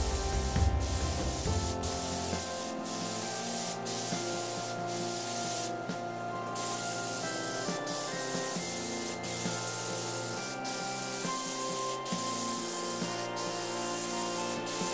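Paint spray hissing as primer is sprayed onto a car bonnet: a steady hiss broken by short pauses about once a second, over background music.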